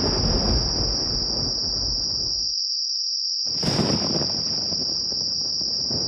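A continuous, steady high-pitched insect-like whine, over a low noisy rustle that cuts out for about a second in the middle.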